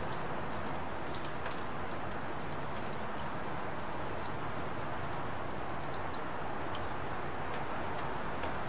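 Steady rain falling, an even hiss with many scattered sharp drips.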